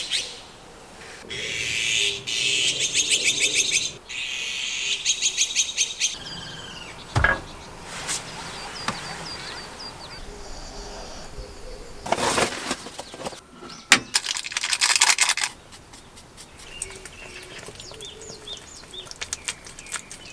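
Wild birds singing: three bursts of fast repeated high notes, each lasting one to two seconds, then a few short chirps.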